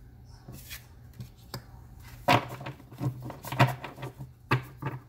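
Tarot cards being handled over a wooden table: a handful of sharp taps and flicks as a card is laid down and the deck is squared in the hands.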